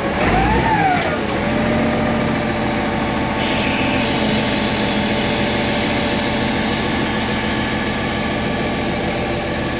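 Engine of a large-tyred heavy machine idling steadily. A higher hiss joins about three and a half seconds in.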